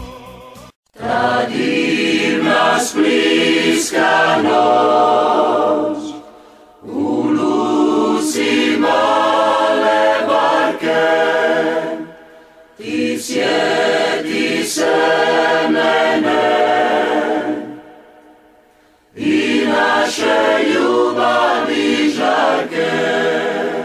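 A crowd of football supporters singing a chant together, without instruments, in four phrases of about five seconds each with short breaks between them, and a few sharp hits within the singing.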